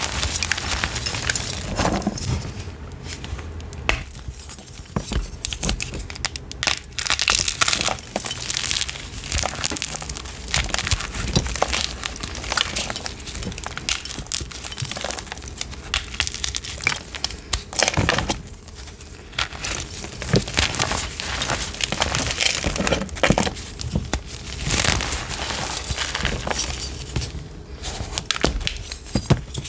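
Chalk being crushed, a steady run of irregular crunches and crumbling crackles, with louder bursts of crunching every few seconds.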